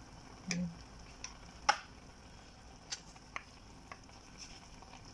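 A metal spoon scooping liver spread out of a can and scraping it off against a wooden spatula over the pan: a few separate clicks and taps, the sharpest about a second and a half in.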